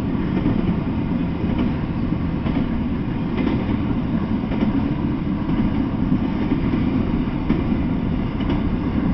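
Intermodal freight train cars rolling past at steady speed: a continuous rumble of steel wheels on rail, with a few faint clicks scattered through it.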